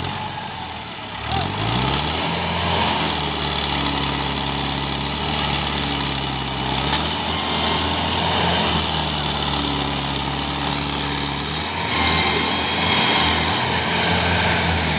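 Mahindra 585 DI tractor's diesel engine revving up about a second in, then running hard as it hauls a heavily loaded sugarcane trolley. Its pitch dips and recovers twice under the load.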